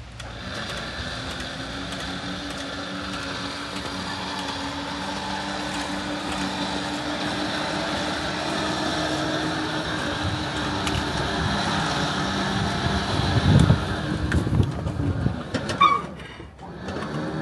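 Trailer's electric winch motor running steadily as it pays out cable, lowering a car down the ramps. It stops about 15 s in and starts again near the end, with low heavy thumps just before it stops.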